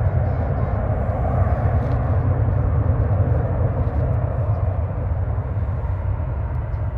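Airliner engine noise from an aircraft passing close by: a loud, steady rumble with deep bass that slowly fades over the last couple of seconds.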